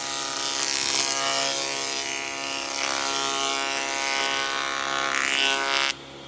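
A power tool working wood, its motor running steadily under a harsh cutting hiss, which stops abruptly near the end.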